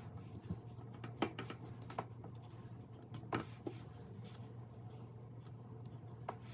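Raw shrimp being peeled by hand: scattered small clicks and crackles of shell coming away, over a steady low hum.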